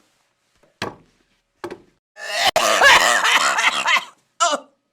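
A person coughing from the burn of Buldak spicy noodles: two short coughs, then a loud, strained coughing fit of about two seconds with the voice in it, and one more short cough near the end.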